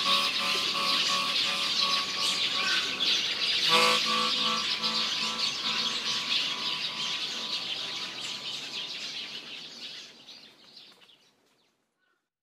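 Many birds chirping and twittering over soft, held music chords that change about four seconds in. Everything fades out over the last few seconds.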